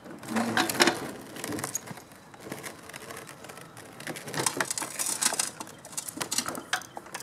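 Knocks and rattles of a walk-behind lawn mower being tipped over onto its side: its plastic and metal parts clatter and bump in two bunches of handling noise.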